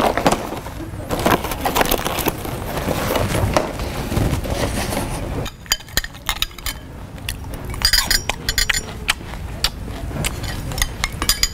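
Cereal being eaten noisily: crunching and clinking. The second half is a run of sharp separate clicks.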